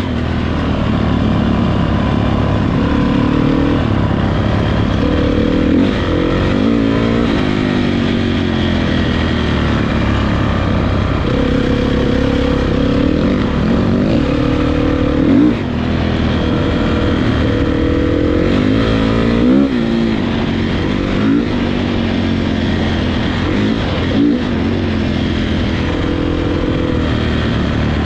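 Several motocross motorcycles racing, their engines revving up and falling back over and over as the riders work the throttle and shift gears, with more than one bike heard at once.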